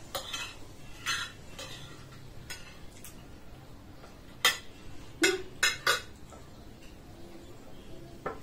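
Metal spoons clinking and scraping against ceramic plates while eating: scattered sharp clinks, with a close run of the loudest ones about halfway through.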